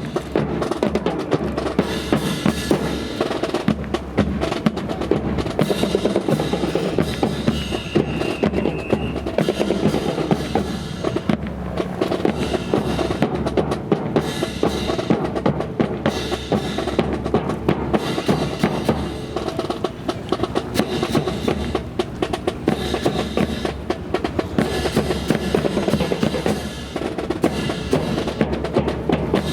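Drums playing without pause: rapid snare-like rolls over bass drum beats.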